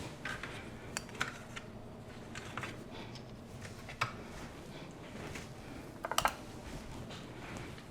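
Kitchen utensils and dishes clinking and knocking, scattered single clicks with a quick run of clinks about six seconds in.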